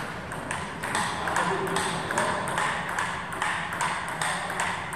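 Table tennis ball clicking against the table and the bats in a string of short, sharp clicks, roughly three a second.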